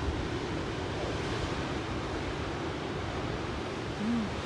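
Pacific surf rushing steadily over rocks, with wind buffeting the microphone. A short low hum near the end.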